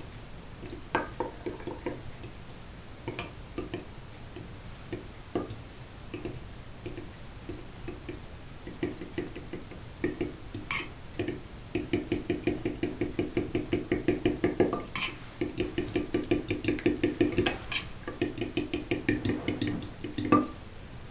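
Spoon stirring and beating a thick sour cream sauce in a glass bowl: scattered scrapes and clinks against the glass at first, then fast rhythmic beating, about five strokes a second, from about halfway through.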